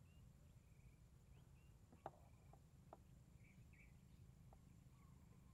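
Near silence, with a few faint clicks from metal fishing pliers working a hook out of a snakehead's mouth in a plastic cooler, and faint distant bird chirps.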